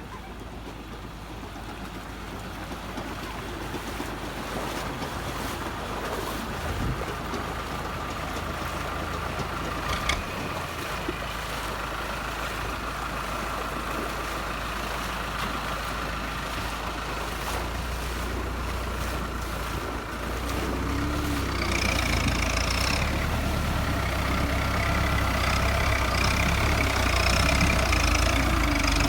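An engine running, growing steadily louder, with a higher whine joining it after about two-thirds of the way through.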